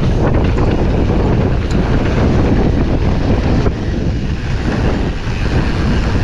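Wind rushing over a GoPro's microphone at downhill riding speed, mixed with the steady rumble and occasional rattle of a Commencal Supreme DH29 downhill mountain bike running over the trail.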